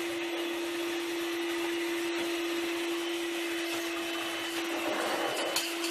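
Electric hand mixer running steadily at one speed, its beaters whirring in a bowl of liquid dessert mixture, with a few light clicks near the end.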